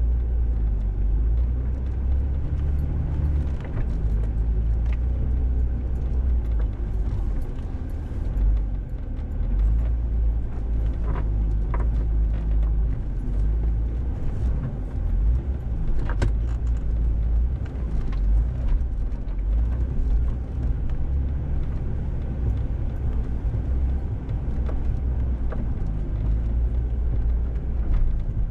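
Jeep Wrangler TJ crawling in low range over a rocky 4x4 trail: a steady low engine and drivetrain rumble, with a few short clicks and knocks scattered through it.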